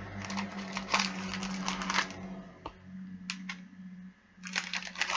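A cardboard biscuit box being opened and handled, with a run of crackles and clicks for about two and a half seconds. After a quieter pause with a couple of single clicks, the crackling picks up again near the end.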